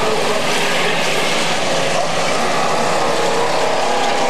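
Several stock-car engines running together as a pack of cars circles an asphalt oval: a loud, steady blend of engine notes, their pitches shifting slightly as cars pass.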